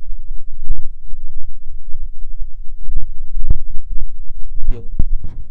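Handling and walking noise on a handheld phone's microphone: a steady low rumble broken by irregular dull thumps, several of them close together a few seconds in and two more near the end.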